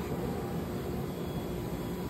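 Steady low background noise of a factory floor, a constant mechanical or ventilation hum with no distinct events.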